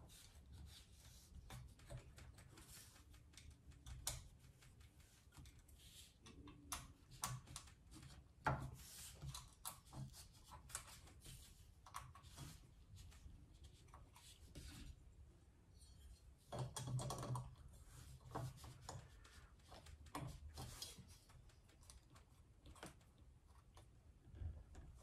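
Faint, scattered light clicks and taps of a hex wrench and screws as a metal filament-holder bracket is slid into place and screwed onto a 3D printer's frame, with a slightly louder cluster of handling noise about two-thirds of the way through.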